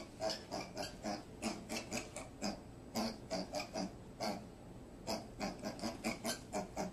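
Rapid short animal grunts, several a second, in quick runs with a brief pause about four seconds in.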